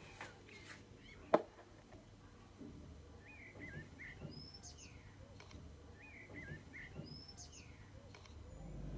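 Songbirds chirping outdoors, a short warbled phrase heard twice with thin higher chirps after each. A single sharp click about a second and a half in, and a low rumble coming up near the end.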